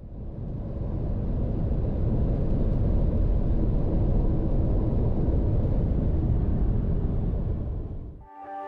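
Steady road and engine noise heard from inside a passenger van cruising on a motorway, deepest in the low end. It fades in at the start and fades out near the end, where music begins.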